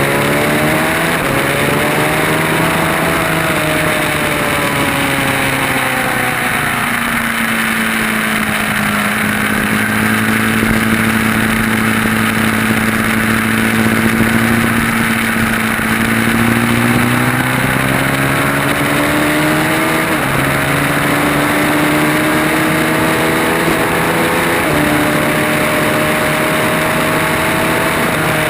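Motorcycle engine at track speed: the pitch falls away for several seconds, holds steady, then climbs again, with sudden steps in pitch about 20 and 25 seconds in that mark gear changes. A steady rushing noise runs underneath.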